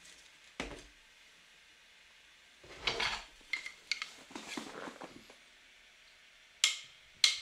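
A few light clinks and knocks at irregular intervals, some with a short ring, and a brief rustle about three seconds in.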